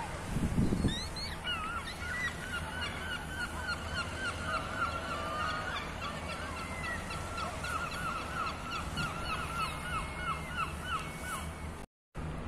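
A flock of gulls calling: a fast, steady run of short, repeated yelping calls, several birds at once, with wind rumbling on the microphone.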